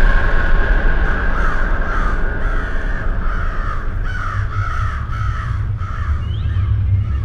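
A flock of crows cawing, many short overlapping calls in quick succession that thin out after about six seconds, over a loud low rumble.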